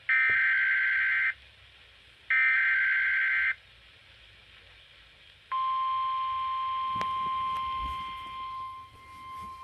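NOAA Weather Radio Emergency Alert System alert. Two SAME header data bursts, each about a second long, are followed by a pause. Then, about five and a half seconds in, the steady 1050 Hz weather radio warning alarm tone begins, with crackles of radio static and a dip in level toward the end.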